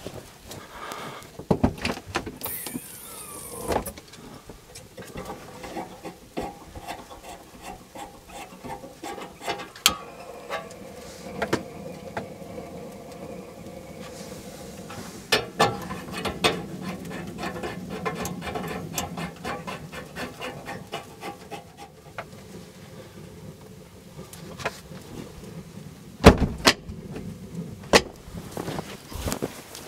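Gear being handled: repeated sharp clicks and knocks, loudest near the end, with a steady hum of a few held tones through the middle.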